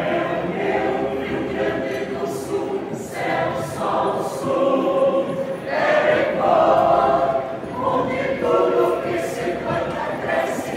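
Mixed choir of women's and men's voices singing a cappella, swelling louder about six seconds in.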